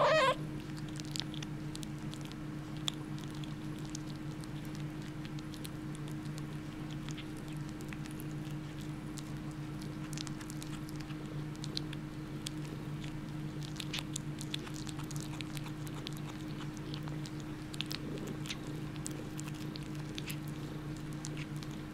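A kitten chewing and gnawing on a meat bone: scattered small clicks and crunches over a steady low hum. The tail of a pitched cat cry is heard right at the start.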